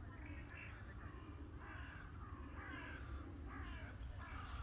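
Crows cawing: about five short, harsh caws, each falling a little in pitch, over a steady low rumble.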